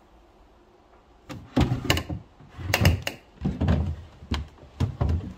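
Wooden drawers of a Victorian mahogany chest of drawers being slid out and pushed back on their runners: a run of about ten knocks and sliding rubs, starting about a second in.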